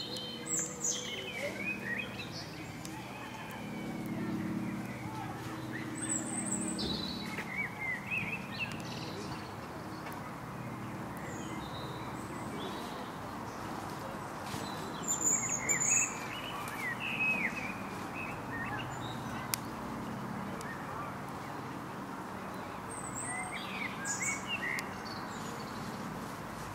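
A songbird singing in short bursts of quick chirps every several seconds, over a steady background hum.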